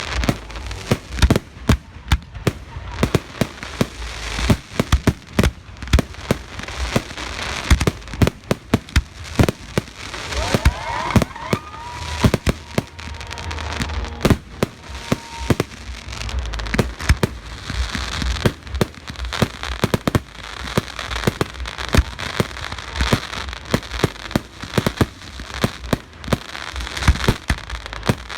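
Fireworks display: a dense, irregular run of sharp bangs from shells bursting. A few rising whistles come about ten to twelve seconds in, and the second half carries a steady high crackling hiss under the bangs.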